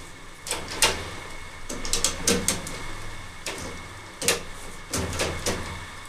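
A screwdriver working the wire terminal screws of a well pump pressure switch: irregular short clicks and scrapes in several quick clusters as the wires are fastened down.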